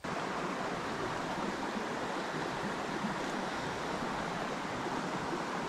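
Steady rushing of a small forest creek's running water.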